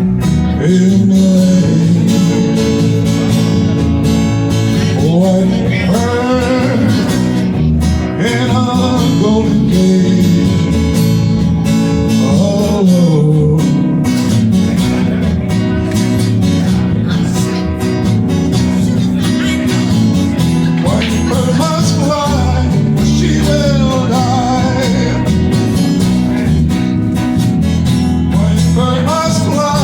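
Live band music: acoustic guitar and bass guitar playing an instrumental passage of a slow folk-rock song, with a voice singing wavering, wordless lines at times over it.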